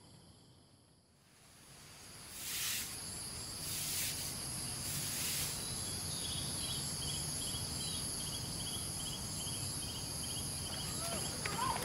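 Crickets and other insects in a night-time chorus. A near-silent start gives way, about two seconds in, to a steady high trill with a few brief hissing swells. From about six seconds in a regular chirp joins, a little over twice a second.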